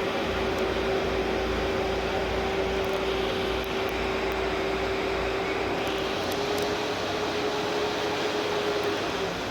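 Road roller's engine running steadily, with a steady whine that steps up slightly in pitch about six seconds in and drops away near the end.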